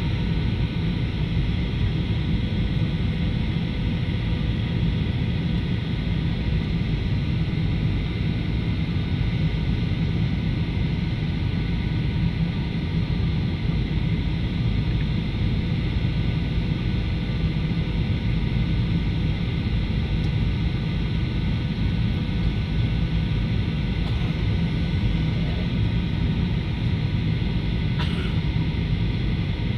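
Airliner cabin noise during descent to landing: a steady low rumble of the engines and rushing air, with faint steady tones above it. A brief click sounds near the end.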